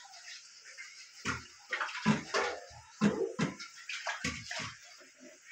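Water running from a kitchen tap to fetch more water for the pot, with a steady hiss and about a dozen irregular louder sounds over it.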